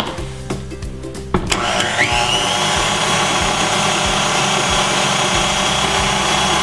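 Background music, then about a second and a half in a click and a KitchenAid tilt-head stand mixer's motor starting: its whine rises quickly and settles into a steady run as the flat beater mixes cake batter.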